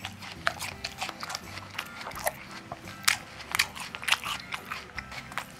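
Rabbit biting and chewing raw kohlrabi: a quick, irregular run of small crunches and crisp clicks.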